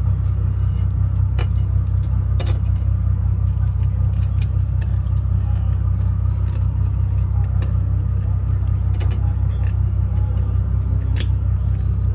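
Steady low rumble with scattered light clinks of tableware and glass.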